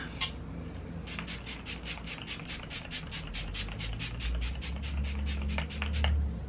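Fine-mist setting spray being pumped over the face again and again: a quick run of short hisses, about seven a second, that stops about six seconds in. A low rumble sits under the later part.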